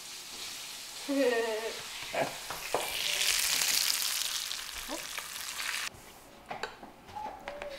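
Halibut pieces pan-frying in olive oil in a skillet: a steady sizzle, loudest a few seconds in, that cuts off suddenly near the end.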